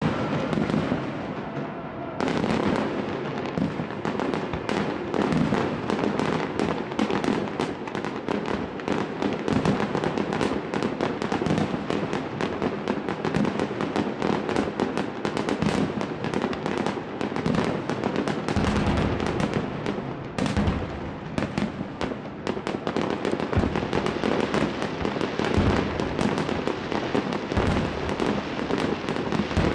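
Fireworks display: a dense, continuous barrage of bangs and crackling from bursting shells, starting in earnest about two seconds in. Deeper booms come through repeatedly in the second half.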